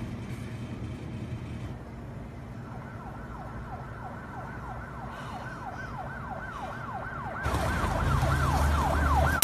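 Emergency vehicle siren sweeping up and down quickly, about two to three sweeps a second, growing louder. Near the end a low rumble and hiss of street noise come in under it.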